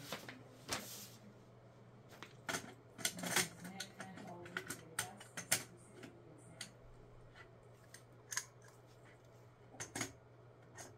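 Gray plastic parts of a Cosmic Fury Megazord toy clicking and clacking as they are handled and fitted together: irregular small clicks, bunched about two to four seconds in, again around five seconds, and near the end.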